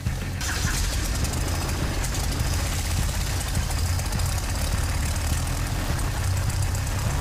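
Piston engine and propeller of a small high-wing aerobatic plane running steadily at idle on the ground: an even low drone with a hiss over it.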